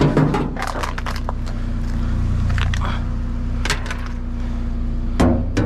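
A vehicle engine idling steadily, with scattered clatters and knocks of junk being handled, grouped near the start, in the middle and near the end.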